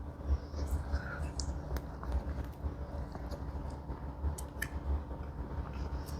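A person chewing a mouthful of tortilla with peanut butter, with scattered small clicks and a steady low rumble underneath.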